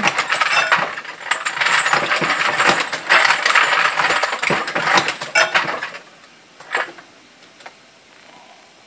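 Cast lead bullets clinking and jingling against each other as a hand rummages through a pile of them for about six seconds, then a couple of single metallic clicks from the Dillon 650 progressive reloading press.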